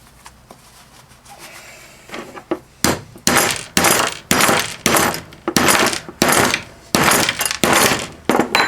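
About a dozen hammer blows, roughly two a second, on a Flojet water pump's cast aluminum housing to try to break it apart. The strikes begin about three seconds in, each with a short ring.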